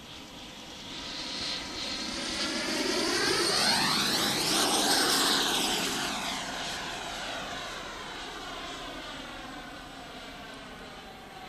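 Electric ducted fan of an RC BAE Hawk model jet (a Dyn-E-Max fan unit) in flight, making a pass: its high whine swells to its loudest about four to five seconds in, then fades as the jet moves away.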